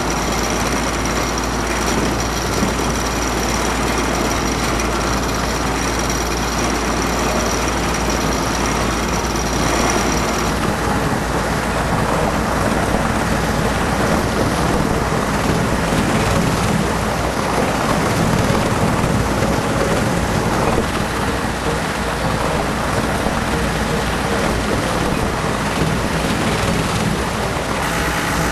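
Tractor-driven Bauer MTX slurry mixer running, with the slurry churning and surging as a steady heavy rushing over the tractor engine's drone. A thin high whine stops about ten seconds in, and near the end the tractor engine comes more to the fore.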